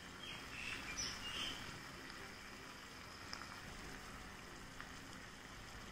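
Curry leaves dropped by hand onto chicken thoran in a cast-iron pan: a few soft, light ticks in the first second or two over a faint, steady hiss.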